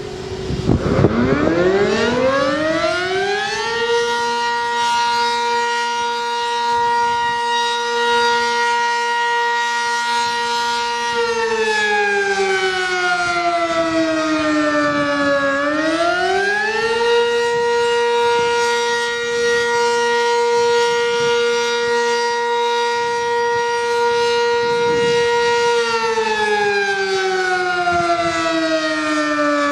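Outdoor warning siren winding up from a low pitch to a steady high tone. It then wails, holding the pitch for several seconds, sliding down and climbing back up, twice.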